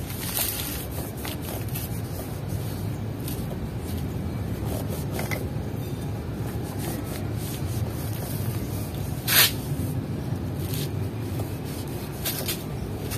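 Short hisses of WD-40 aerosol sprayed onto a rusty steel handlebar tube to loosen the rust, with a cloth rubbing it between sprays. The longest, loudest spray comes about nine seconds in, over a steady low rumble.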